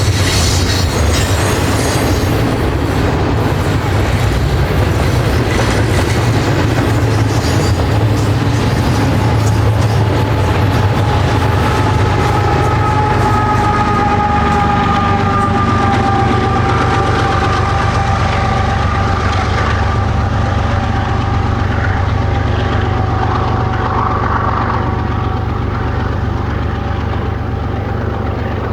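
Freight train rolling past on the main line: a steady, loud rumble of wheels and railcars. About halfway through a sustained high tone joins in and slowly sags in pitch. The sound eases off near the end.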